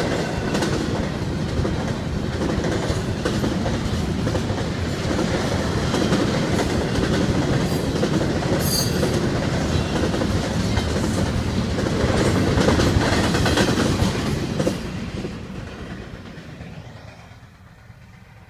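CSX double-stack container freight train running past a grade crossing, its wheels rolling and knocking steadily over the rails; about three-quarters of the way through the sound fades away as the end of the train goes by.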